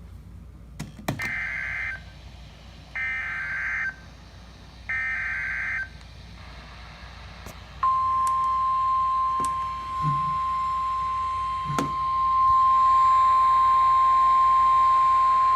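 Emergency Alert System broadcast: three bursts of SAME digital header data, each about a second long and sounding as a harsh buzzing screech, followed about two seconds later by the steady single-pitch 1050 Hz NOAA Weather Radio warning alarm tone. These signal the start of a new severe thunderstorm warning.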